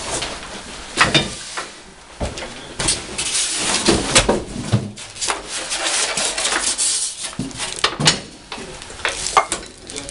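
A heavy steel floor jack being unpacked and handled: foam packing and cardboard scraping and rustling, with several metal knocks and clanks as the jack is moved and set down on the table.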